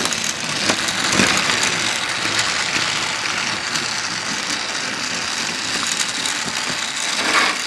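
Several battery-powered Trackmaster toy trains running on plastic track: a steady whir of small electric motors and gears, with light clicks of wheels over the track joints.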